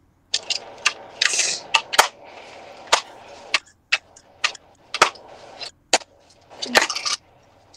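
Handling noise from a phone on a ring-light stand being moved and adjusted: about a dozen irregular sharp clicks and knocks with rustling between them, the loudest knock about two seconds in.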